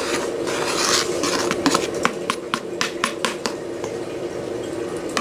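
Metal spoon scraping powdered dry ingredients off a plastic plate into a bowl of flour, then a quick run of light taps in the middle as the spoon knocks against the plate to shake the powder off.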